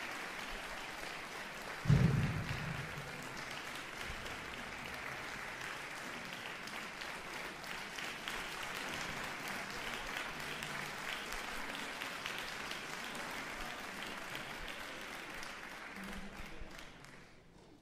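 Audience applauding, with one loud low thump about two seconds in; the clapping dies away near the end.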